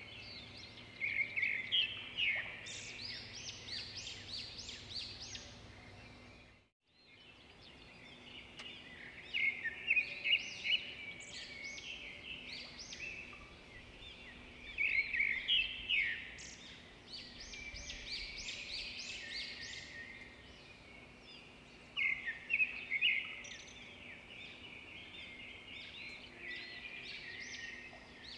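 Small birds chirping in repeated bouts of quick, high chirps over a faint steady background, with the sound cutting out briefly about seven seconds in.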